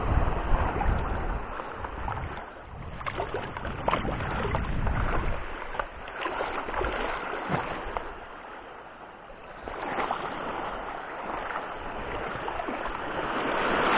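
Shallow seawater sloshing and lapping at the shoreline, with scattered small splashes. Wind rumbles on the microphone for the first couple of seconds, then dies down.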